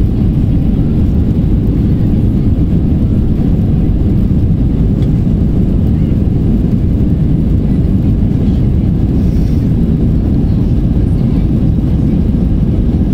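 Airbus A319 cabin noise over the wing as the airliner rolls down the runway: a loud, steady, low rumble of engines and wheels.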